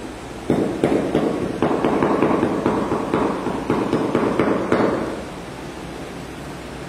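Mallet tapping a terracotta floor tile down into the wet mortar bed: a quick run of many sharp taps, stopping about five seconds in.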